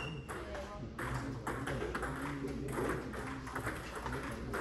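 Table tennis ball clicking against the table and bats in quick, irregular knocks, with voices in the background.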